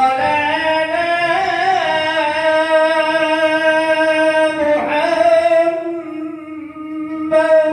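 A man singing an Arabic shalawat solo into a handheld microphone, drawing out long, slowly wavering held notes. His voice drops away briefly about six seconds in, then a new held note begins near the end.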